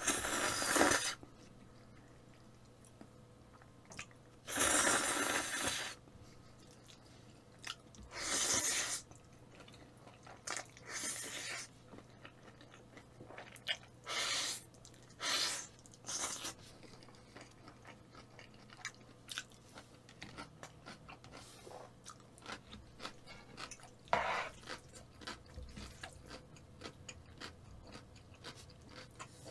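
A man eating wide kalguksu noodles in black-bean sauce: repeated loud slurps of about a second each, with wet chewing and small mouth clicks between them. The slurps come mostly in the first half, and there is one more a little after midway.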